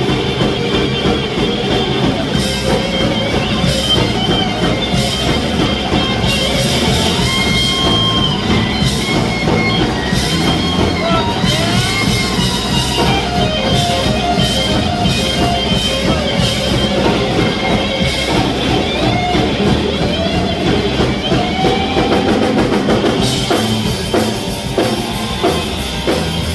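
Live rock band playing an instrumental passage with no vocals: a lead guitar line with bending, gliding notes over a steady drum kit and bass.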